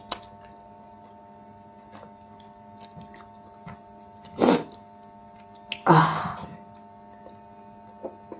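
Eating sounds close to the microphone: quiet chewing and mouth clicks while eating fish with okra soup, with two louder, short mouth noises about four and a half and six seconds in. A steady electrical hum runs underneath.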